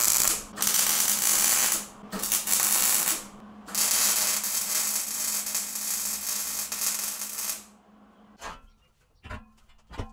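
Wire-feed welder crackling steadily as it welds steel square tubing, in four runs of one to four seconds, the last and longest stopping about eight seconds in, over a steady low hum. A few short knocks follow near the end.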